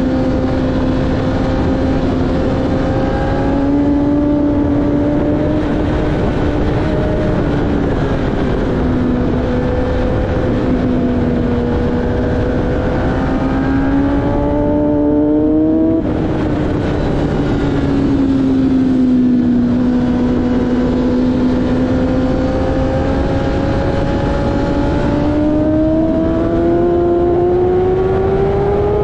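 Racing motorcycle engine at high revs, heard from on the bike with wind rushing over the microphone. The engine note climbs slowly, drops sharply once about halfway through, then climbs steadily again toward the end.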